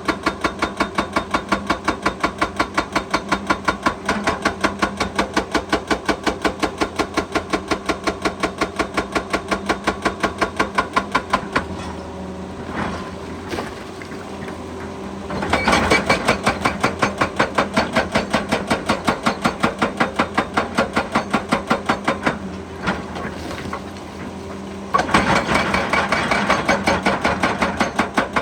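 Excavator-mounted hydraulic rock breaker hammering rock in rapid blows, about six a second, over the excavator's running engine. The hammering stops twice for a few seconds, leaving the engine and a few knocks, then starts again.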